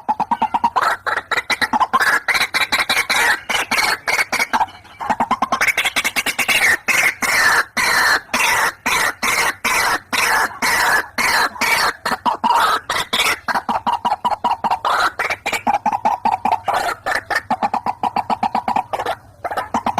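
White-breasted waterhen (ruak-ruak) calling in a long, fast run of harsh croaking notes, several a second. There are brief breaks about five seconds in and near the end. It is a recorded lure call.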